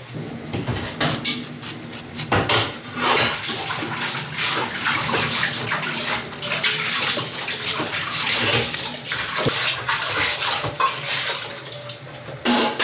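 Water running and splashing, with frequent irregular splashes and knocks, as in washing by hand.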